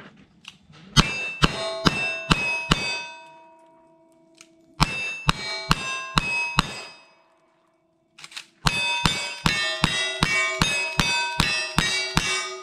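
Gunfire with steel plate targets ringing after the hits: two strings of five handgun shots about half a second apart, then a quicker run of about ten rifle shots near the end.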